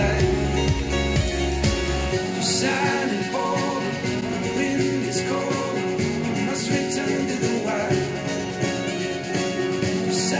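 A song with singing played through Mackie CR4 and then CR4-X compact studio monitors and picked up by microphones in the room. The deep bass drops away about two seconds in.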